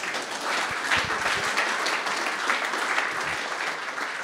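Audience applauding.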